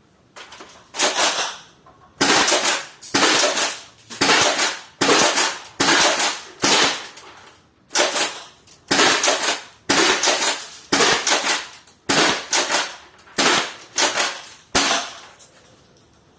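6mm airsoft pump shotgun being cycled and fired over and over: a long run of sharp cracks and clacks, about one or two a second, starting about a second in and stopping shortly before the end.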